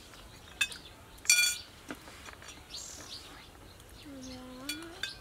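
Metal spoons clinking on ceramic plates during a meal: a few sharp ringing clinks, the loudest about a second in. Birds chirp faintly, and a short hum-like voice sounds near the end.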